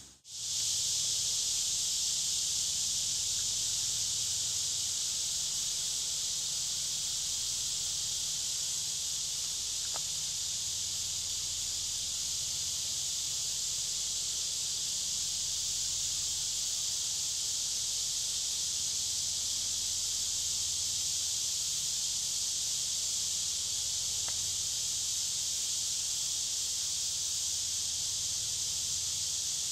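Steady, high-pitched chorus of insects, an even, unbroken shrill hiss over a faint low hum.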